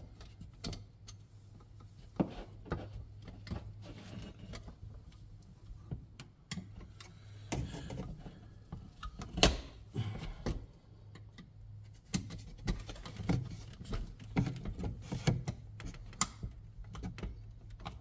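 Irregular small clicks, taps and rattles of a 220 V dryer receptacle being worked with a screwdriver while its thick, stiff wires are pushed into the wall box. One louder knock comes about halfway through, over a steady low hum.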